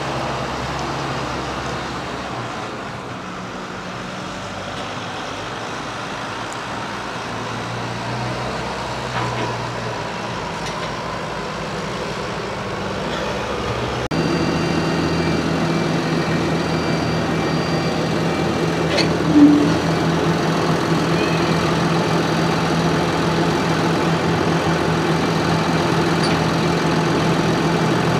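Farm tractor diesel engines running steadily while packing a silage clamp, the engine note getting louder and steadier about halfway through. A short, sharp sound stands out a little after the middle.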